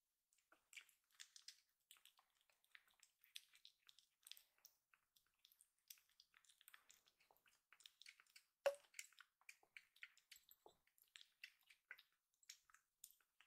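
Kitten suckling milk from a feeding bottle: faint, quick, irregular wet clicks and smacks of sucking at the nipple, with one louder click about two-thirds of the way through.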